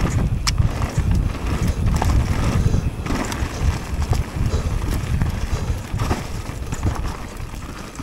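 Mountain bike descending a dirt trail: wind buffeting the microphone over the rumble of tyres on dirt and leaves, with sharp clicks and rattles from the bike over bumps. It eases off near the end as the bike slows.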